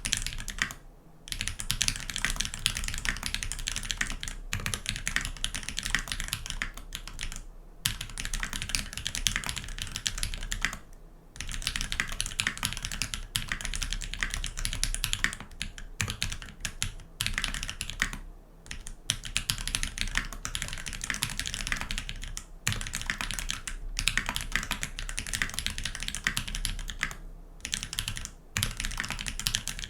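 Continuous fast typing on a custom mechanical keyboard with lubed Holypanda tactile switches, a brass plate and GMK keycaps: a dense run of keystroke clacks, broken by a few short pauses.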